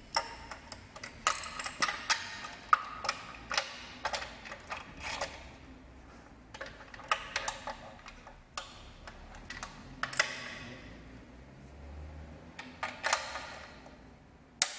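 Torque wrench ratcheting and clinking on metal as the steering-rack mounting bolts on the subframe are tightened to 100 N·m: irregular sharp clicks, some with a short metallic ring.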